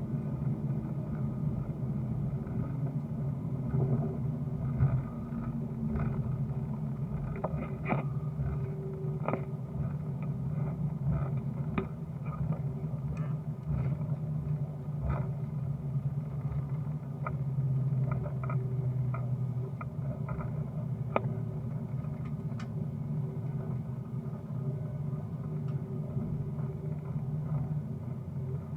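Steady low rumble of a vehicle in motion, heard from inside, with scattered knocks and rattles throughout.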